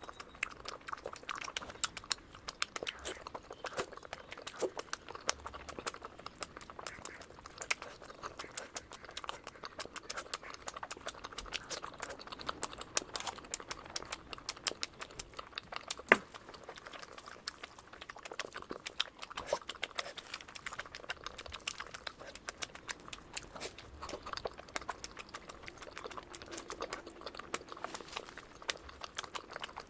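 Close-up eating sounds of mutton fat curry with rice: a dense, continuous patter of small wet clicks and smacks from mixing and chewing, with one sharper click about halfway through.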